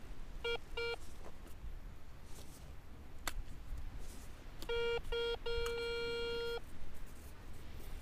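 Metal detector giving its target tone as the coil passes over metal in the sand: three short beeps near the start, then two short beeps and a longer held tone about five seconds in. A few faint clicks come in between.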